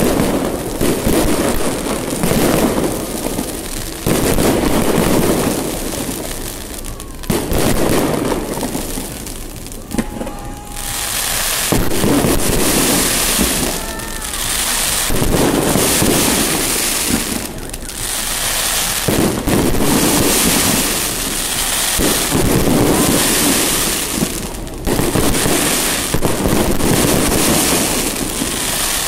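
New Year fireworks display: a near-continuous barrage of bangs and crackling from aerial shells, easing briefly a few times.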